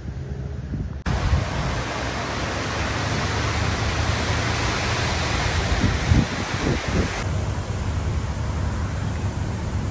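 Wind rushing and buffeting on the camera microphone, a steady noise with a harsher, wider hiss that starts abruptly about a second in and cuts back to a low rumble at about seven seconds.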